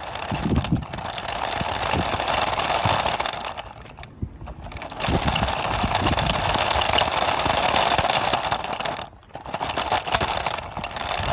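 Small electric motor and gears of an RC car running in three spells, each cut by a short pause, the first about four seconds in and the second about nine seconds in.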